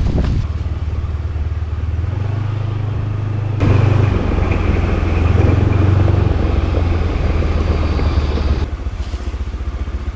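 Rented motor scooter's small engine pulling away, its hum rising in pitch as it picks up speed, with wind and road hiss joining about three and a half seconds in. Near the end the throttle is eased off and the engine note drops to a rougher low rumble as the scooter slows.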